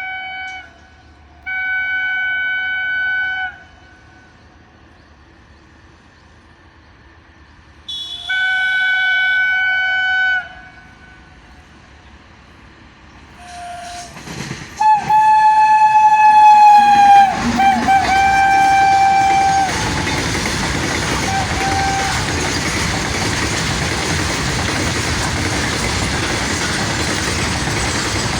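Indian Railways WAG-9 electric locomotive sounding its horn: a short blast, two blasts of about two seconds each, then a long blast as it passes that drops slightly in pitch, and a brief toot. After that comes the steady rumble and clatter of the goods wagons rolling past.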